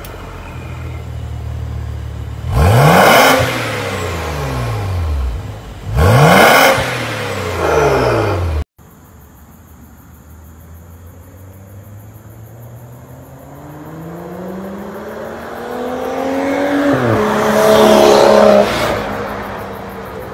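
BMW F10 535i's turbocharged straight-six through an Armytrix valvetronic cat-back exhaust, free-revved twice while standing, each rev rising sharply and falling back to idle. After a cut, the car accelerates toward and past, its engine note climbing steadily and loudest as it goes by.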